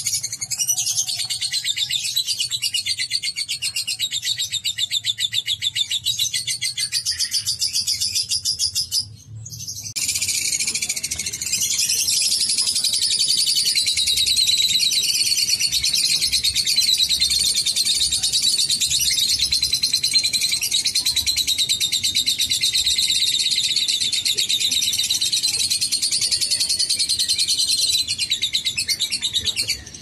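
Lovebird 'ngekek': a long, very rapid, high-pitched chattering trill held without a pause. It breaks off about nine seconds in, and a second long burst of the same chatter starts a second later and lasts almost to the end.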